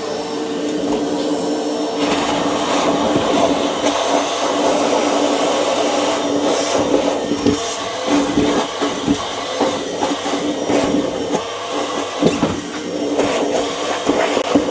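Wet-and-dry vacuum running steadily with a constant motor hum, sucking water and waterlogged expanding foam out of a boat's flooded bilge through a wide hose. Irregular crackles and slurps come through as the sludge is drawn up, thicker from about halfway in.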